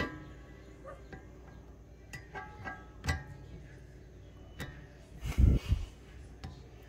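Steel meat grinder parts being handled with the motor off: a series of sharp metal clinks, several ringing briefly, and a louder low thump about five and a half seconds in.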